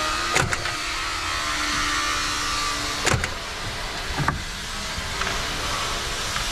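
Steady mechanical whirring from a car, with three short sharp clicks, the first near the start and two more about halfway through.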